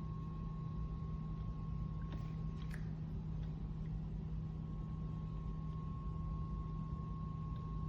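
A steady low electrical-sounding hum with a fainter steady high tone, over low background rumble, and a couple of faint clicks about two and a half seconds in.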